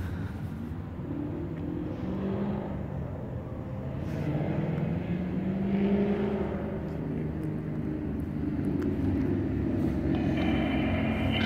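Low rumble of distant engines, a hum whose pitch rises and falls. A higher steady tone joins near the end.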